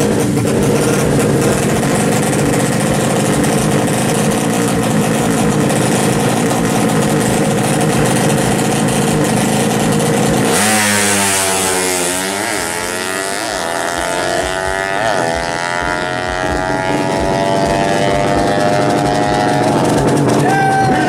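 Tuned 200 cc SOHC four-stroke drag bike engines revving steadily at the start line, then about ten seconds in a bike launches and accelerates away, its pitch rising and dropping at each of several upshifts, then fading slightly down the strip.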